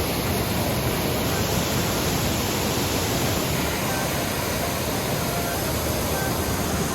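Waterfall rushing in a steady, unbroken roar of water, with a powerful, forceful flow.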